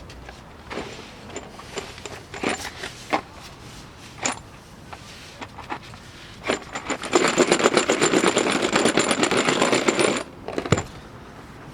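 Metal tools and steering pump parts clinking and knocking, then a fast, steady mechanical rattle for about three and a half seconds, ending with one sharp click.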